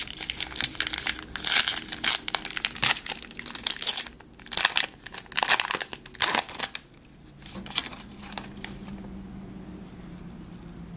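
Foil wrapper of a Pokémon card booster pack crinkling and tearing as it is pulled open by hand, dense and crackly for about seven seconds. Then it goes much quieter, with a faint low hum and a few soft rustles as the cards are handled.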